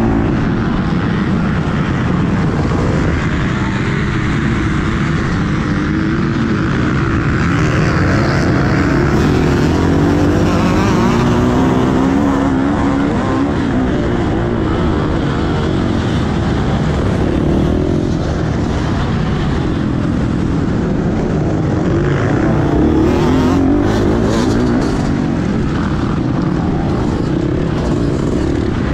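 Dirt bike's engine running hard under the rider, heard from a helmet-mounted camera, its pitch rising and falling with the throttle and gear changes.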